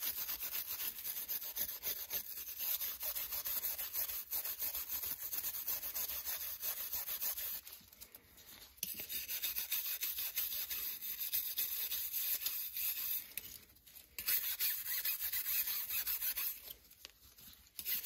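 Brass wire brush scrubbing a wet steel combination-square rule: a rapid back-and-forth scratching of bristles on metal, stopping briefly about eight, fourteen and seventeen seconds in. The brushing is taking rust and dark oxidation off the steel after a soak in rust remover.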